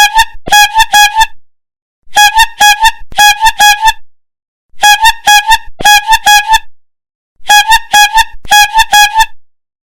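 A cilok and pentol street seller's horn tooting on one steady pitch, in bursts of five or six quick toots with short pauses between, about every two and a half seconds.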